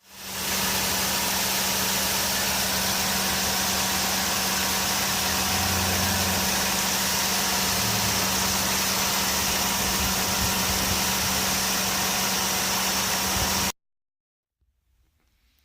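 Toyota Corolla Fielder's engine idling with the air-conditioning compressor running: a steady hum under a loud, even hiss. It fades in at the start and cuts off abruptly about fourteen seconds in.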